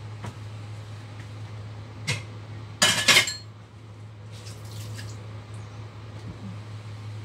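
Handling at a kitchen sink: a light clink about two seconds in, then a short loud rush of noise about three seconds in, and fainter rustling a little later, over a steady low hum.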